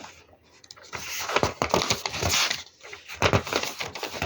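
Paper being handled and rustled, with light taps, in two spells: a longer one from about a second in, and a shorter one just past three seconds.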